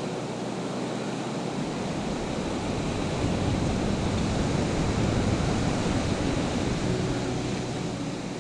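Ocean surf washing over a rocky shore, a steady rush of noise that swells louder in the middle.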